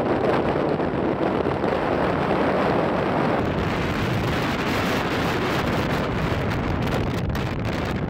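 Strong blizzard wind blasting across the microphone: a loud, steady rush of wind noise.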